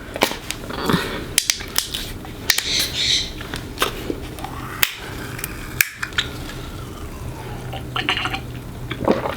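Kitchen handling noises: scattered sharp clicks and clinks of dishes or containers being moved about, over a steady low hum.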